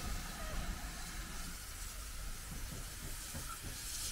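Steam locomotive hauling a passenger train, heard from a distance as a steady hiss over an uneven low rumble.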